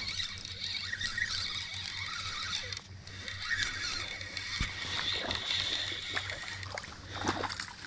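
Spinning reel being cranked as a small hooked bass is reeled in, with a few splashes at the surface and a steady low hum underneath.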